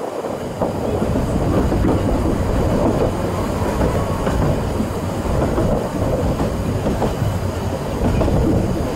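2 ft narrow-gauge train running on the track, heard from an open carriage window: a steady rumble of the coaches' wheels on the rails, with faint irregular clicks.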